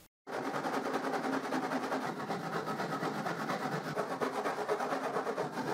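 Hand saw cutting through a night table's wooden top in quick, even back-and-forth strokes.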